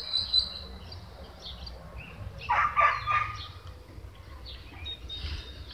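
Puppies crying, a cluster of short high cries about two and a half seconds in, over a low steady outdoor rumble, with a thin high chirp at the start and again near the end.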